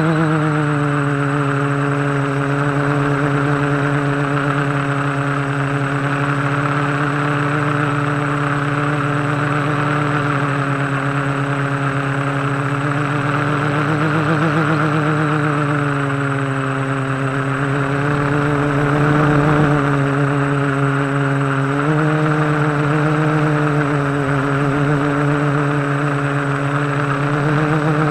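Quadcopter's electric motors and propellers running in flight, picked up by the onboard camera: a steady hum with a hiss of airflow, its pitch wavering with throttle and stepping up slightly about three-quarters of the way through.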